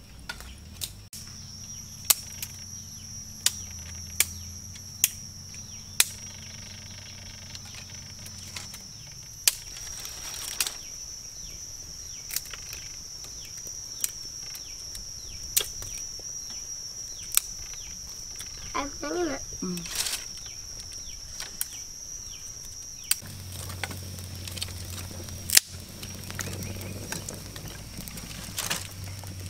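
Dry sticks snapping sharply one at a time, about one snap every second or two, as kindling is broken by hand, over a steady high insect drone.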